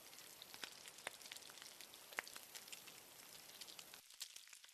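Faint, irregular crackling and popping of a wood fire burning, over a soft hiss.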